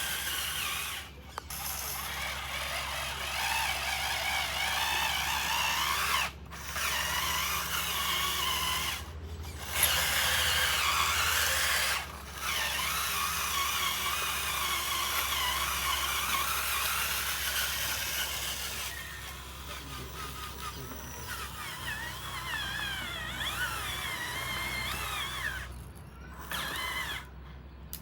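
Small electric motors and gearboxes of radio-controlled construction models whining as they work. The whine rises and falls in pitch and stops briefly several times; in the second half it is quieter, with quick gliding changes in pitch.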